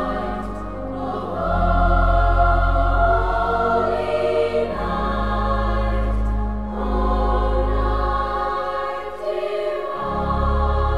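Choral music: voices singing slow, sustained chords over a deep held bass, the chords changing every couple of seconds.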